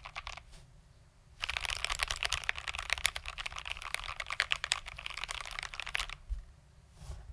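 Typing on a GMMK Pro mechanical keyboard with lubed Tangerine linear switches, a polycarbonate plate and Cherry ABS doubleshot keycaps. A few keystrokes come first, then after a short pause a fast, dense run of keystrokes starts about a second and a half in and stops about six seconds in, with a few more keystrokes near the end.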